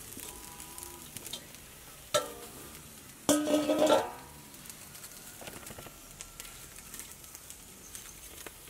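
A steel bowl used as a lid clanks on an iron wok of boiling yams, with a sharp ringing knock about two seconds in. About a second later comes a louder ringing clatter of steel with a rush of steam as the pot is opened.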